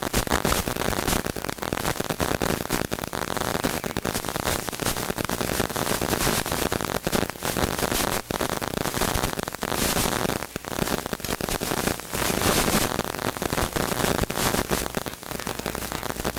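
Steady rustling and crackling noise: clothing and gear rubbing against the microphone of a body-worn camera as the wearer moves.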